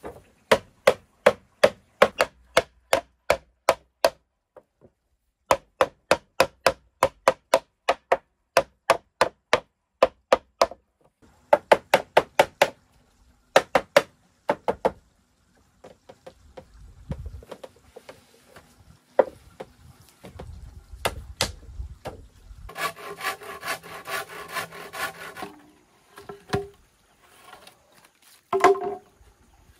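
Dry bamboo being struck with a tool, a sharp wooden knock about three times a second, in three runs of several seconds each. Scattered single knocks follow, and near three-quarters of the way through there is a steadier sound of about two and a half seconds.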